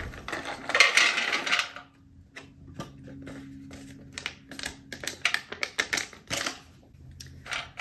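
Almonds and chocolate-covered coffee beans poured from a foil pouch into a stainless steel mess tray: a loud rattling rush about a second in, then a run of sharp separate clicks as the last pieces are shaken out onto the metal.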